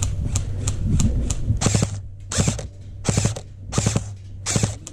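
Airsoft gun firing: single shots about three a second, then from about one and a half seconds in, a string of short rapid-fire bursts roughly every 0.7 s.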